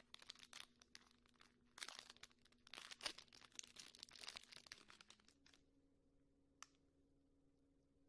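Slime being squeezed and poked by hand, giving faint, dense crackling and popping that dies away about five and a half seconds in, with one last click a second later.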